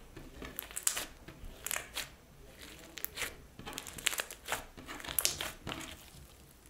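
Slime being squeezed and worked by hand, with an irregular run of crackling, crinkling pops.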